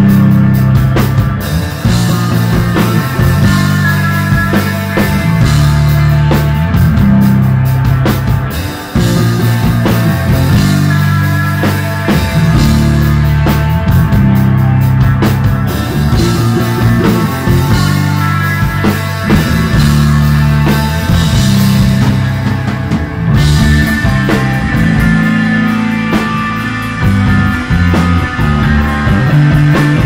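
Live desert rock: electric bass, electric guitar and drum kit playing loudly together, with a heavy bass line that moves between notes about every second and cymbals washing over the top.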